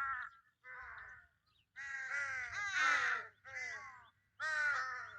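Crows cawing: a run of harsh calls, each dropping in pitch, with two or more birds calling over one another about two to three seconds in.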